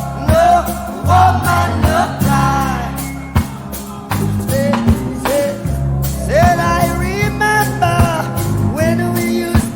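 A rock song with a sung vocal, a steady beat and bass.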